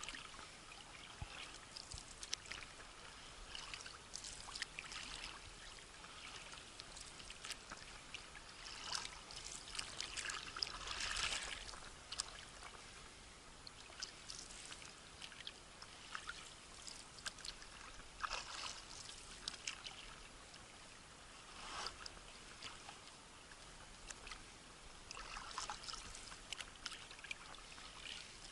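Paddle strokes in lake water, one every few seconds: the blade dipping and pulling with small splashes, water trickling and dripping off it between strokes.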